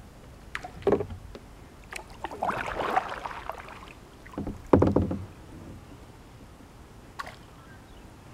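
Knocks and bumps against a plastic kayak's hull, with a short swishing noise between them about two and a half seconds in; the loudest bump comes about five seconds in.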